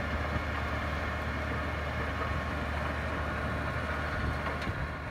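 Tractor engine running steadily under load while it drives and pulls an Alpego Poker 500 rotary tiller working the soil. The sound begins to fade near the end.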